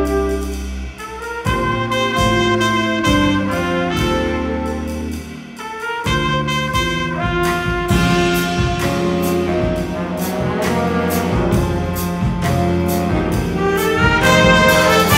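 Student jazz big band playing live: saxophone, trumpet and trombone sections over a rhythm section, with regular drum and cymbal hits. The band drops back briefly about a second in and again about five seconds in, then plays fuller and louder toward the end.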